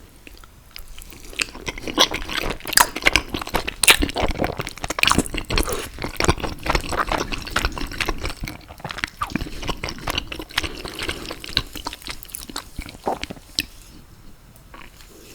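Close-miked wet eating sounds: chewing and slurping with dense, crackly mouth smacks, starting about a second in and tailing off near the end.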